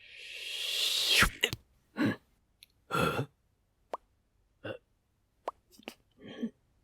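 A sneeze: a breathy build-up growing louder for about a second, then a sharp burst. Two shorter breathy bursts and a few small clicks follow.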